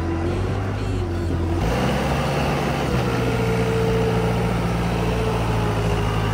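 Large vehicle engine running steadily, with a low hum and a higher whine that step up in pitch about a second and a half in and again about three seconds in, as if the engine is being taken up under load.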